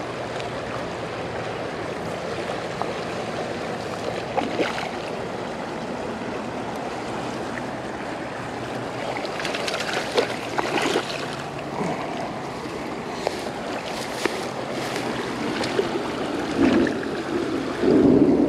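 Steady rush of a small stream, with short splashes and knocks in the second half as a trout is landed in a landing net, the loudest splashing near the end.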